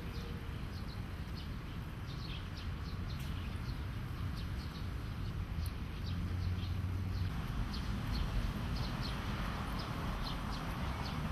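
Park ambience: small birds chirping over and over in short high notes, over a steady low rumble. A broader rushing noise grows a little louder about halfway through.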